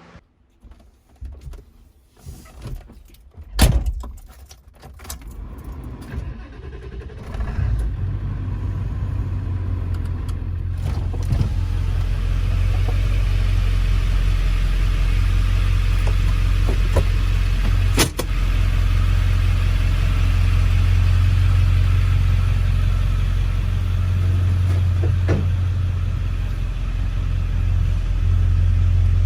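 A sharp knock about four seconds in, then a 1997 Ford 7.3 L Powerstroke turbo-diesel V8 comes up and runs with a steady low rumble, freshly refilled with oil.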